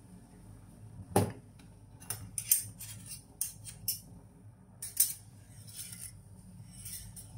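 Metal mesh sieve and spoon clinking against the rim of a metal soup pot as they are lifted off. One sharp clink about a second in, then a run of lighter clinks and rattles.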